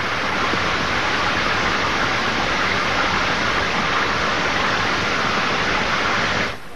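Steady rush of falling water, a dense even hiss with no change in it, that cuts off suddenly near the end.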